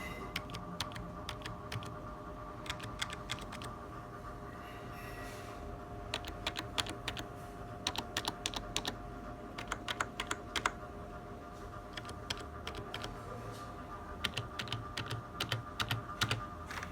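Typing on a computer keyboard: runs of quick clicking keystrokes broken by short pauses, the densest runs about six to eleven seconds in and again near the end.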